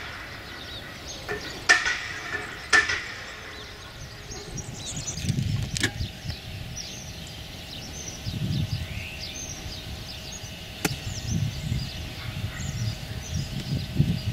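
Birds chirping in short, rapid calls, with a few sharp clicks, the loudest two in the first three seconds, and low rumbling swells.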